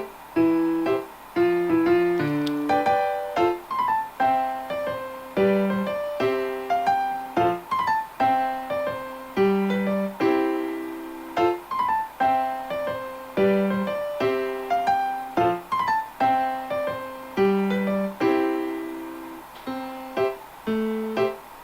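Background music: a gentle piano melody, notes struck and decaying in a steady, repeating pattern.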